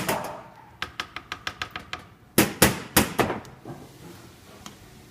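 Coffee being prepared in an espresso portafilter: a quick run of about ten light taps, then four louder, sharper knocks, metal and hard plastic struck together, as the grounds are settled and tamped in the basket.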